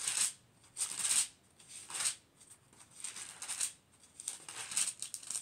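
Bible pages being turned by hand to find a chapter: about five short papery rustles with pauses between them.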